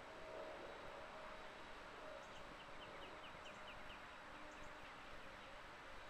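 Faint outdoor ambience under steady hiss, with a small bird singing a quick run of about eight short falling notes from about two to four seconds in, and faint high double ticks about once a second.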